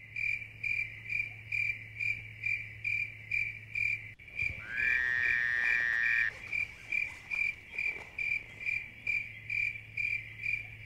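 Steady cricket-like chirping, a high pulse repeating about twice a second. About four and a half seconds in, a lower tone slides up and holds for nearly two seconds; a low hum underneath stops abruptly about four seconds in.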